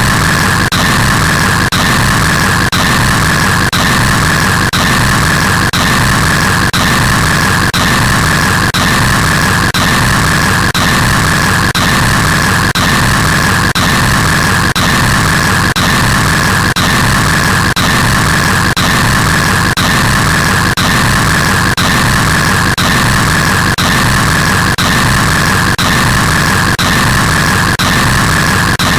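Very loud, harsh noise, steady and unchanging, with a faint pulse about twice a second.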